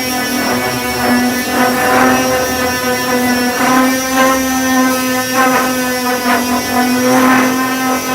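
Electric disc sander running steadily with a constant whine, its 240-grit disc sanding body filler. The grit noise swells and fades in repeated strokes, about once a second.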